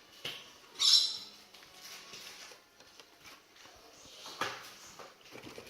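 Carded Hot Wheels packs (cardboard backing cards with plastic blisters) being handled and shuffled in the case, with scraping and rustling and a louder plastic crackle about a second in.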